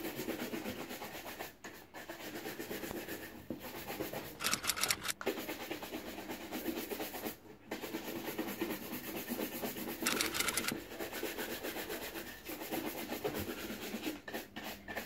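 Shoe brush buffing a waxed black shoe to a shine, bristles rubbing steadily across it. There are two brisk spells of faster strokes, about four and ten seconds in.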